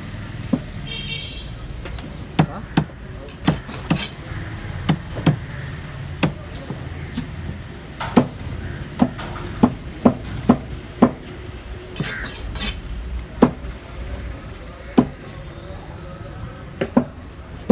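Large curved cleaver chopping a seer fish into pieces on a wooden block: a run of sharp knocks at an uneven pace, about one or two a second.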